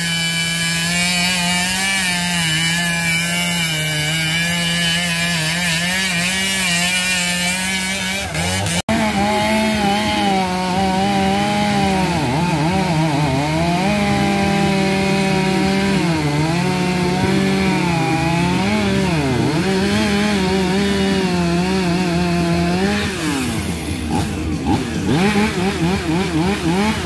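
Chainsaw running and cutting into a wooden log, its engine note rising and falling as the throttle is worked through the cut. The sound drops out briefly about a third of the way through, and near the end the steady note gives way to a rougher, irregular sound.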